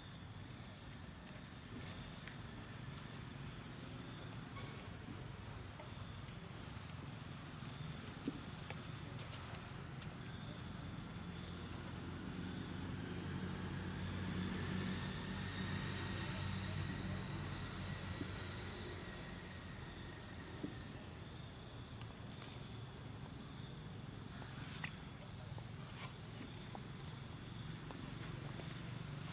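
Insect chorus: a rapid, evenly pulsing chirp over two steady high-pitched drones. A low rumble swells in the middle, and there are a few soft clicks.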